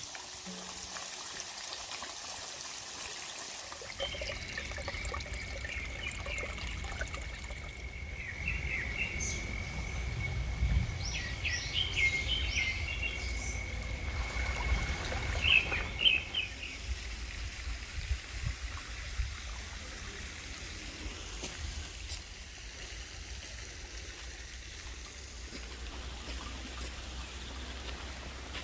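Outdoor ambience of water trickling steadily, with chirping bird calls over a thin, steady high tone from about four to sixteen seconds in, and a low rumble underneath.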